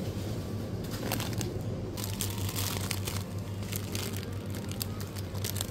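Thin plastic bread bag crinkling as a packet of rolls is picked up and handled, in rustling spells about two seconds in and again near the end, over a steady low hum.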